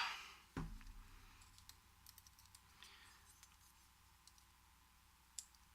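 Faint, scattered light clicks of small brass lock parts being handled, with a soft knock about half a second in. These are the driver pins being taken out of a gutted American 5200 padlock.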